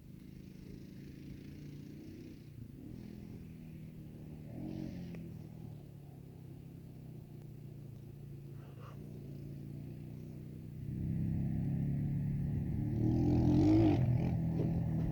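ATV engine running at a steady idle; it gets louder about 11 seconds in, with a short rev near the end.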